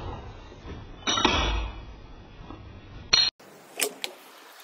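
Rifle shots from a Remington 700 bolt-action in .308: one sharp report about a second in with a short ringing tail, and another sharp, loud report near three seconds. Two fainter sharp clicks follow near the end.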